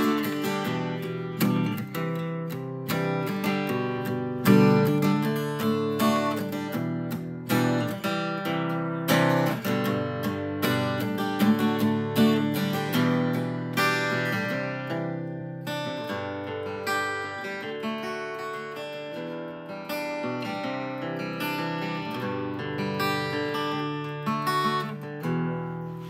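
Acoustic guitar strummed in chords, growing gradually quieter, with a last chord struck near the end and left ringing.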